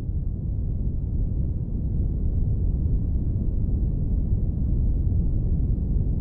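A low, steady rumble that swells slightly over the first couple of seconds and then holds.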